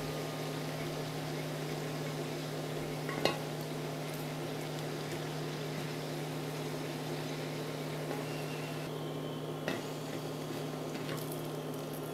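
Sunflower oil sizzling steadily around fried dough pastries in a pan, with a steady low hum underneath. Two light clicks of a fork against the pan, about three seconds in and again near the end.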